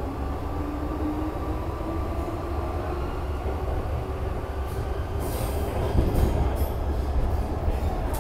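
Cabin noise of a Metro-Cammell M-Train electric multiple unit running through a tunnel: a steady deep rumble from wheels and running gear with a motor hum slowly rising in pitch. From about five seconds in, a high-pitched wheel squeal and clicks join it.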